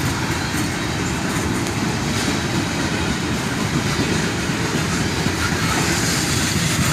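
Freight cars of a long manifest train rolling past, steel wheels clattering over the rail joints in a steady rumble.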